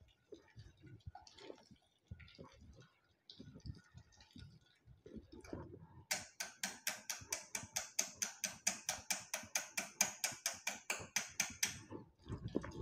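Wire whisk beating thick gram-flour batter in a stainless steel pot. At first there are soft, irregular stirring sounds. From about six seconds in comes a fast, even ticking of the whisk against the pot's side, about five strikes a second, which stops near the end.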